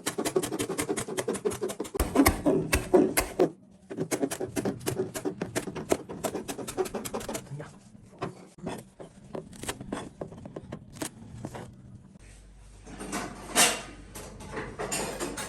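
Knife chopping vegetables on a cutting board: quick repeated strikes for several seconds, a brief pause about three and a half seconds in, then slower, sparser cuts with one louder knock near the end.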